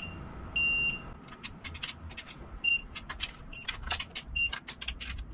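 Ratchet of a digital torque wrench clicking as intake manifold nuts are tightened to 15 Nm, with short electronic beeps from the wrench: one longer beep about half a second in, then several short beeps among the clicks as the set torque is reached.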